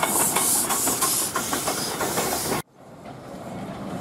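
Steam hissing from the cylinders of a Bundaberg Fowler 0-6-2T narrow-gauge tank locomotive as it moves slowly, pulsing about two or three times a second. It cuts off abruptly about two and a half seconds in, leaving a much quieter steady background noise.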